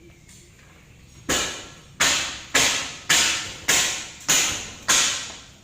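A run of seven sharp, evenly spaced knocks, a little under two a second, each dying away briefly; it starts about a second in.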